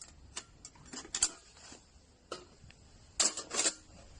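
Scattered light clicks and taps from a portable folding camping fire pit being handled, with a quick cluster of louder clicks about three seconds in.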